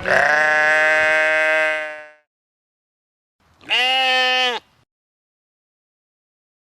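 Two long pitched animal calls separated by a pause: one of about two seconds right at the start, and a shorter one about three and a half seconds in whose pitch rises and then falls.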